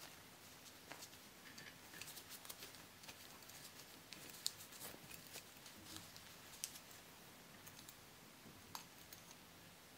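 Faint rubbing of a microfiber cloth and small scattered clicks as the plastic interior and diecast metal baseplate of a 1979 Matchbox Ford Cortina toy are handled and wiped; the sharpest click comes about halfway through.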